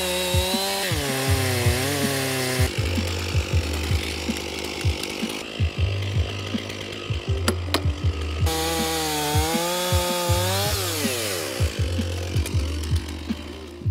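Chainsaw cutting through wood, its engine pitch dipping and recovering as the chain bites, then dropping away as the throttle is released. Background music with a steady beat plays underneath.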